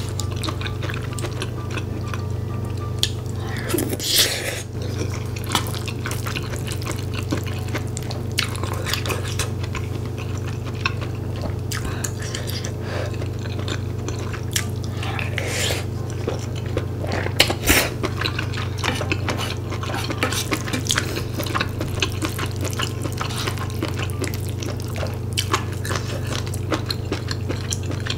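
Close-miked eating sounds: a wooden spoon scraping and clicking against a metal pan as it scoops saucy glass noodles and rice, with wet, sticky mouth sounds of eating. Scattered small clicks throughout, with a couple of louder knocks against the pan.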